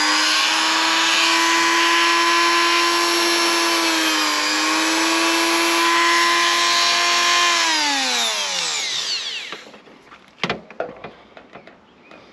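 A Dremel rotary tool running at high speed with a steady whine, grinding rust off a car's rear window frame. Its pitch sags briefly about four and a half seconds in as it bites, then it spins down and stops about eight seconds in, followed by a few sharp knocks.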